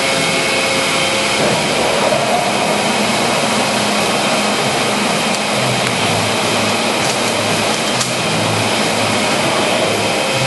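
Monarch Model 62 heavy-duty engine lathe running under power, a steady mechanical drone of its drive and gearing with a few faint steady tones. About halfway through, a low rhythmic pulsing joins it.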